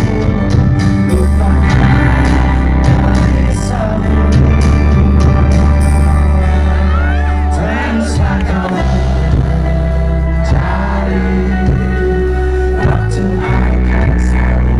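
Rock band playing live, with a male lead vocal over electric guitar, bass and drums, and a heavy bass.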